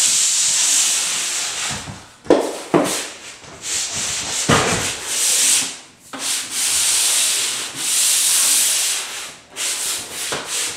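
SmartStick pole-mounted drywall angle sander's sandpaper rasping along drywall inside corners in long back-and-forth strokes, with short gaps between strokes. There are a few short knocks as the sanding head is set into the corner.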